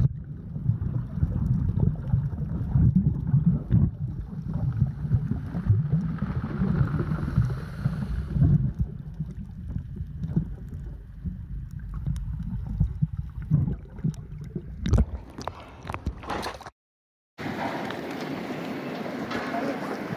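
Muffled underwater sloshing and gurgling from a camera held underwater, a low rumble that rises and falls unevenly, with a few sharp clicks near the end. After a brief cut, a steady rush of wind and water on a catamaran's deck.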